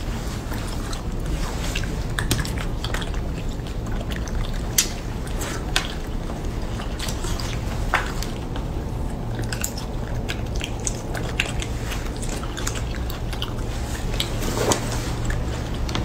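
Close-up eating sounds: chewing and wet mouth smacks with many scattered sharp clicks as baby macaques and a person eat small soft pieces of food, over a steady low hum.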